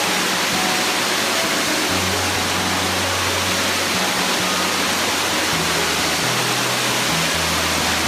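Steady rush of a waterfall and its rocky cascade. Background music with slow, low held notes plays over it.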